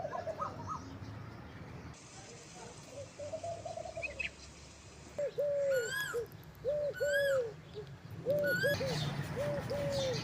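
Doves cooing: soft, low calls at first, then from about five seconds in louder short coos repeated in quick groups of two or three.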